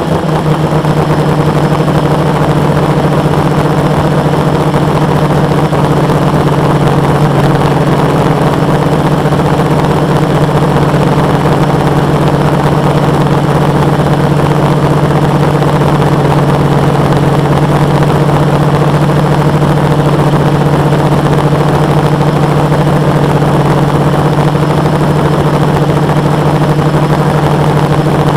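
The quadcopter's four Multistar 2212 920kv brushless motors spinning 10x4.5 propellers, heard as a loud, steady drone with a strong low hum while it hovers. It is picked up by a camera bolted to the frame, so the motors and props are close and dominate the sound.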